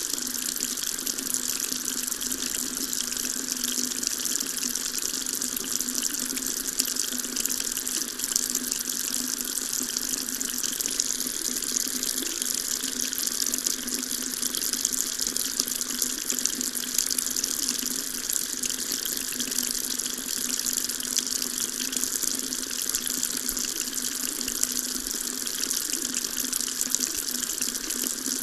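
Water tap running steadily into a sink, an even hiss and splash that stays the same throughout.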